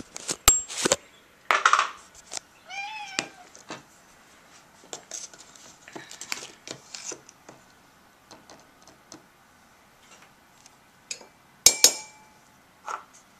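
Plastic lid coming off a jar and a metal spoon scooping maca powder into a drinking glass: scattered small clicks and knocks, with a sharp ringing clink of the spoon against the glass near the end. A cat meows once, about three seconds in.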